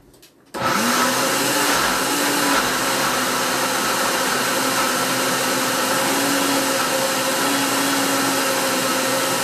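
Countertop blender switched on about half a second in, its motor spinning up fast and running steadily under load as it blends grated carrot, eggs, oil and sugar into carrot cake batter, the pitch wavering slightly; it slows as it is switched off at the very end.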